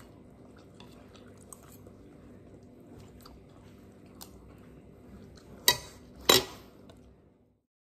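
Chewing and small clicks of metal spoons and forks on plates of greens and rice, then two sharp, loud clinks of a spoon against a plate about six seconds in. The sound cuts off abruptly near the end.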